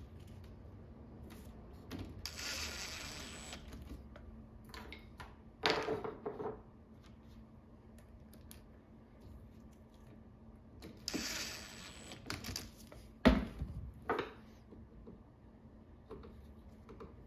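Handling noises from working on a folding chair's mesh seat and hook with tools: two stretches of scraping rustle, a short whirring burst, scattered clicks, and one sharp knock, the loudest sound, about thirteen seconds in, over a faint steady hum.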